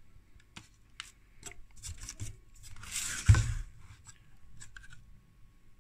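A 3D-printed plastic connector panel being handled and fitted against the transformer's plastic holder. Light clicks come first, then a scraping rub that ends in a sharp knock about three seconds in, and a few faint clicks near the end.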